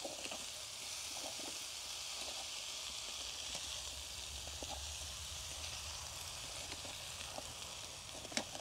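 Bacon, paneer and vegetables sizzling steadily in butter in a steel pan on a butane camping stove, with faint scrapes and clicks of a wooden spatula stirring, and a sharper click near the end.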